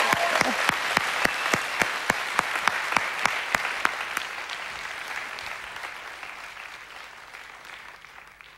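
Studio audience applauding, with sharp single claps about three a second standing out over the general clapping. The applause dies away gradually and is nearly gone by the end.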